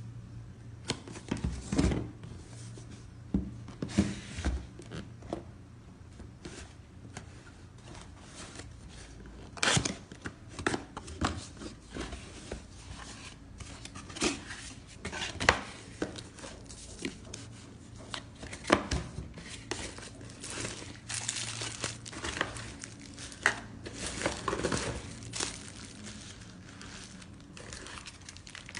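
Packaging of a new camera being handled and opened: irregular crinkling, rustling and tearing of wrapping, with scattered light clicks and knocks. A faint steady low hum runs underneath.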